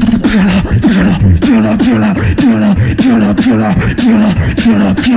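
Beatboxing through a microphone and PA: a fast, steady beat of vocal kick and snare hits over a pitched bass tone that slides downward about twice a second.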